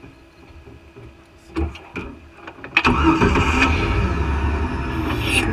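Off-road vehicle's engine, faint at first, comes in suddenly and loud about three seconds in and keeps running hard, after two sharp knocks.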